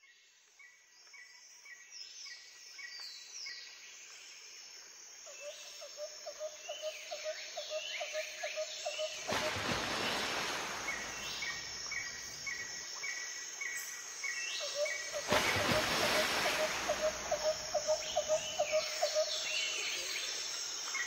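Nature ambience of birds and insects, fading in from silence: runs of short repeated chirps and falling whistled calls over a steady high insect buzz and a pulsing lower trill. Two broad swells of hiss rise and fall about nine and fifteen seconds in.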